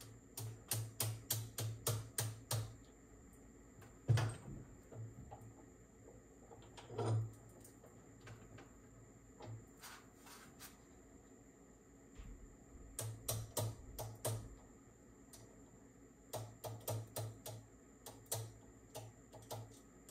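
Light tapping and clicking from small hand tools working a pin out of a cassette-deck pinch-roller part held in a bench vise. The taps come in quick runs of about four a second, three runs in all, with a single louder knock about four seconds in.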